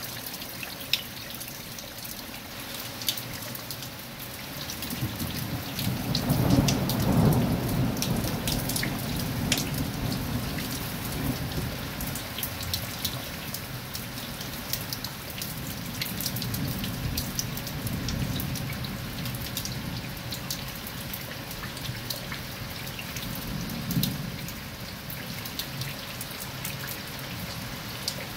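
Heavy rain falling on paving and stone steps, a steady hiss with sharp drop hits close by. Thunder rumbles low from about five seconds in, loudest a couple of seconds later and fading slowly, with a shorter rumble near the end.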